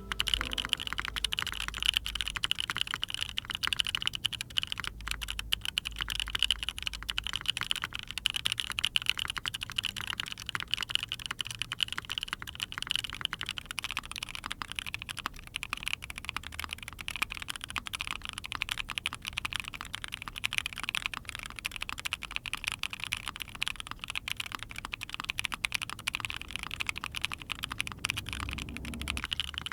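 Steady typing on mechanical keyboards fitted with stock, factory-lubed SP-Star Ube Crinkle long-pole linear switches. These switches sound loud, sharp and tinny in stock form. About halfway through, the typing moves from a Sana TKL with a PP plate to an Ai03 Vega with a POM plate.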